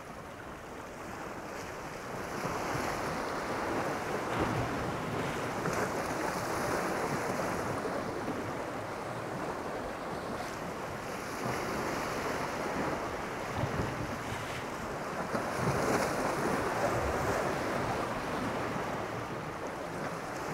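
Sea waves washing against a jetty, with wind blowing across the microphone; the rush of water swells and eases every few seconds.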